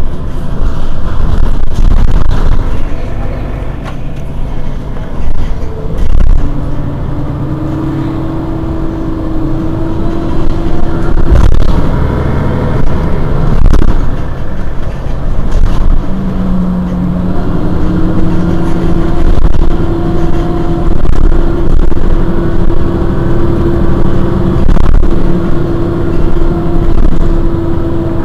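Mercedes-Benz Citaro G C2 articulated city bus idling while standing still: a loud, steady low engine rumble, with steady humming tones that come and go over it.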